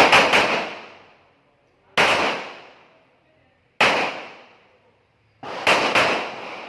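Handgun shots, each sharp crack ringing out and fading over about a second. Single shots come roughly every two seconds, then a quicker run of two or three near the end.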